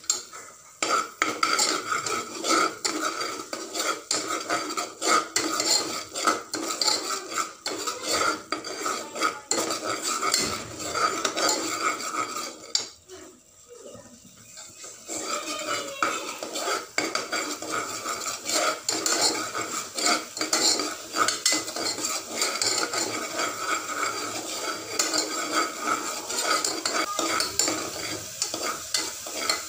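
Steel ladle scraping and clinking against the sides and bottom of an aluminium pressure cooker, stirring onion paste frying in oil, with a steady sizzle underneath. The stirring stops briefly about halfway through, then carries on.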